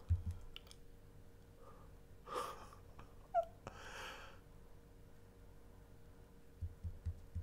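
A man's faint breathy exhales in a quiet room: a short one about two and a half seconds in and a longer, stronger one around four seconds, with a tiny squeak of voice between them. A faint steady hum runs underneath.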